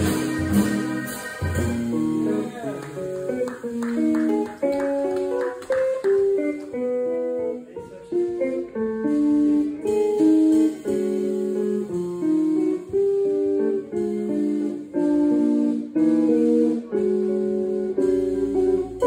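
Electric jazz guitar playing a flowing line of single notes, live with an organ trio; drum hits and low notes fill out the sound in the first second or two, after which the guitar line carries on mostly alone.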